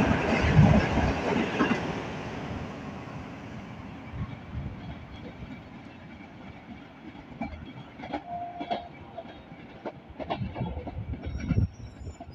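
Green Line Express passenger coaches passing on the rails at speed, the wheel noise fading over the first few seconds as the train pulls away. Fainter scattered knocks follow, with a louder cluster near the end.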